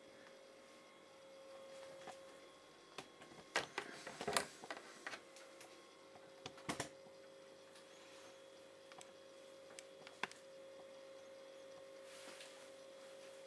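Handling noise of a hand-held camera being moved and turned around: a scatter of clicks and knocks, thickest about four seconds in and again near seven and ten seconds, over a faint steady hum.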